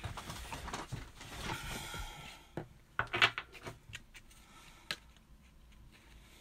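Marigold Tarot cards being flipped through by hand: cards sliding and rustling against one another, then a few sharp taps and snaps as cards are moved to the back of the deck, the loudest about three seconds in.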